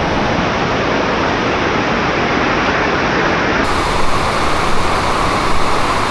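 Steady rushing of falling water from a waterfall, loud and even, with no distinct events; its tone shifts a little about two-thirds of the way through.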